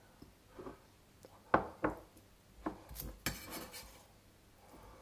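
Steel cleaver blade knocking and scraping on a wooden cutting board as diced chicken is gathered onto it: a few sharp clacks spread out, then a brief scrape.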